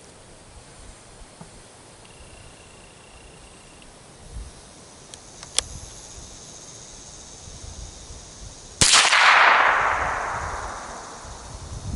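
A single shot from a Ruger 10/22 International .22 rimfire rifle about nine seconds in: a sharp crack with a long fading tail. Before it there is only faint background and a small tick.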